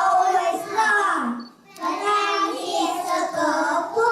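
A child singing a song, holding notes with a short breath pause about a second and a half in.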